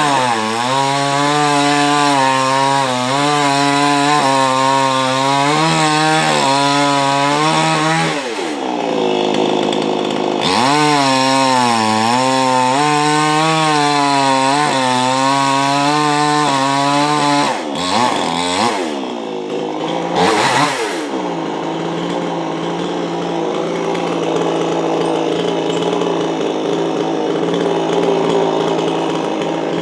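Petrol chainsaw running at high revs and cutting wood, its engine note dipping and recovering again and again as the chain bites. A few quick revs come about two-thirds of the way through, and it then drops back to a steadier, lower running note.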